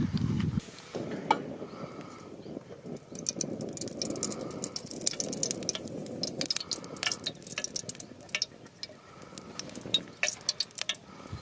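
Liquid splashing and dripping during cooking, with many small clicks and taps throughout; the splashing noise stops about two-thirds of the way through, leaving the clicks.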